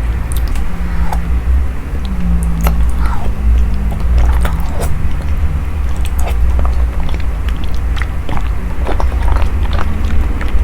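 Close-miked eating: biting and chewing sausage and glass noodles in cream curry sauce, with irregular crisp snaps and wet clicks over a steady low hum.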